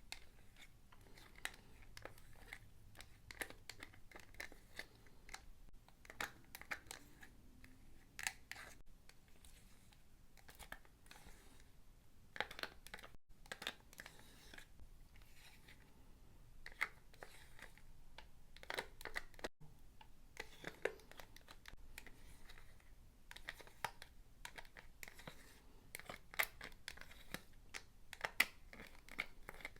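Quiet close-up eating sounds of a Chipotle burrito: scattered crackles of the wrapper crinkling and tearing, mixed with chewing.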